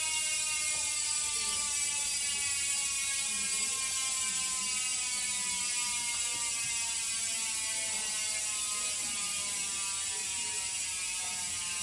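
Industry Nine Hydra rear hub freewheeling as the wheel spins, a steady high ratcheting buzz from its many pawl engagements. The pitch slowly falls as the wheel spins down.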